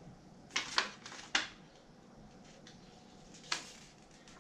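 Handling noise from objects being picked up and moved: a few short clicks and rustles, three close together in the first second and a half and one more about three and a half seconds in.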